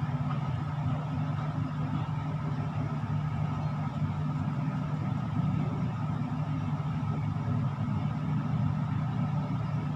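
Steady low mechanical hum, even throughout, with a faint high steady tone over it.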